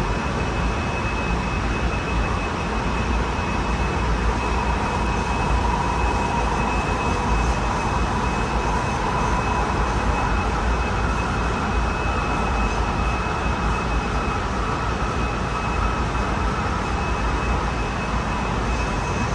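Interior running noise of a Honolulu Skyline driverless metro car in motion: a steady rumble from the wheels and running gear, with a thin high tone held throughout and a fainter motor whine that shifts slightly higher about halfway through.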